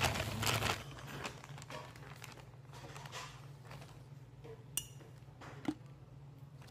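Plastic bag rustling as hands squeeze it, stopping within the first second. Then a steady low hum, with two small sharp clicks near the end.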